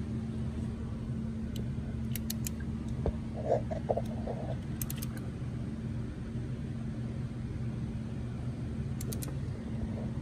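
Quarter-inch drive torque wrench ratcheting in short runs of a few faint clicks as a gallery gasket bolt is tightened, over a steady low hum. A brief squeak comes about three and a half seconds in.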